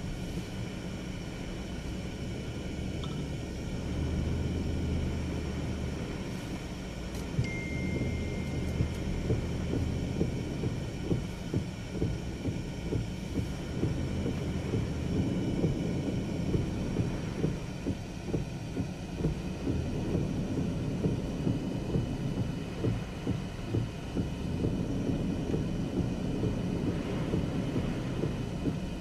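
Hurricane-force wind and heavy rain: a steady low rumble of gusts on the microphone, with frequent short knocks from about a third of the way in.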